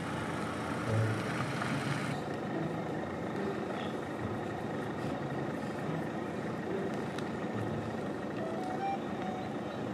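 Pigs grunting a few times in short low bursts over a steady rushing background noise.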